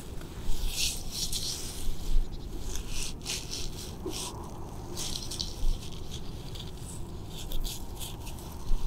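Snow-covered knit glove scratching and rubbing the bark of a tree trunk, in irregular bursts of rough scraping strokes.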